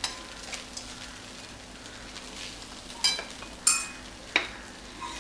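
A steel spoon stirring flattened rice in a stainless-steel pan over a faint, steady sizzle. About three seconds in come three sharp metallic clinks of the spoon against the pan.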